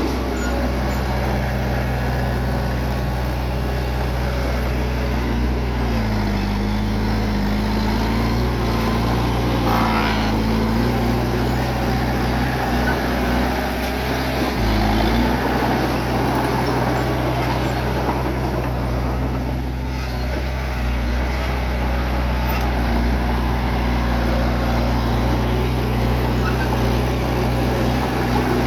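Bulldozer's diesel engine running steadily under load, its pitch dipping and recovering a few times in the middle as the load changes.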